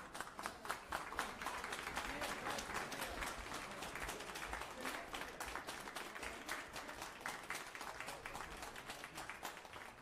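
Spectators applauding, a dense run of hand claps that builds in the first couple of seconds and thins out near the end.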